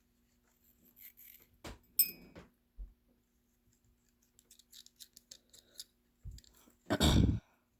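Small metal parts of a Zippo lighter's insert being handled: scattered light clicks, and one sharp ringing metallic clink about two seconds in. A louder handling bump comes near the end.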